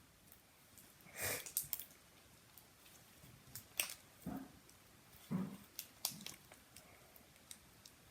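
Fishbowl slime, clear slime packed with plastic fishbowl beads, being squeezed and played with by hand: a few faint, short crunching squishes about a second apart.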